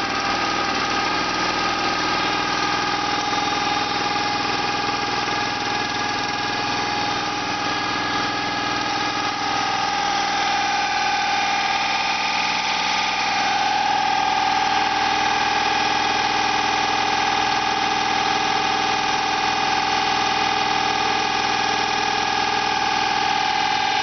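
Homemade drilling rig's engine and hydraulic system running steadily with a whine. About halfway through, the whine rises slightly in pitch and the sound gets a little louder, as if the hydraulics take up load.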